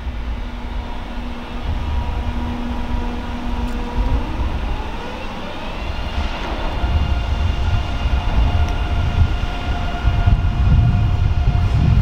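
DB ICE 3 high-speed electric train approaching, its electric traction drive giving a steady whine that glides upward about four seconds in and settles on a higher steady pitch. A low rumble grows as the train nears.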